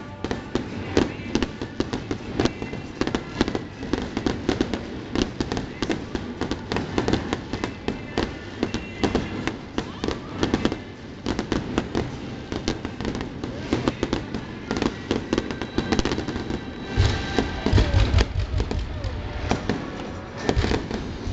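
Fireworks going off in quick succession: a dense run of crackling pops from many small bursts, with deeper, louder bangs from larger shells about three-quarters of the way through and again near the end.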